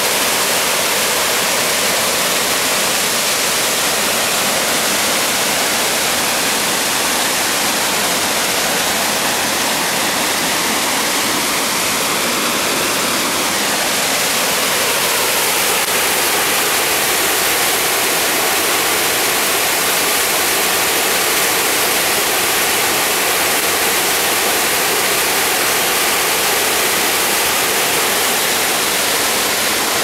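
Mekong River rapids at Tad Somphamit: whitewater rushing through narrow rocky channels, a loud, steady, unbroken roar of water.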